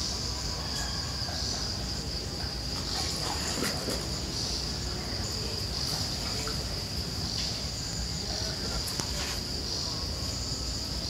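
Insects chirring in a steady high-pitched drone that swells slightly every second or two, with a few faint clicks.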